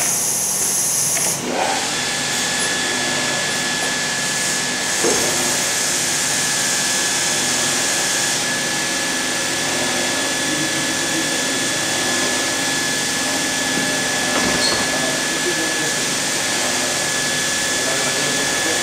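Automatic pail-filling machine running with a steady mechanical hum. A hiss cuts off about a second and a half in. From about two seconds in, a constant whine runs alongside as the electric mixer motor lowers its mixing element into a pail and runs.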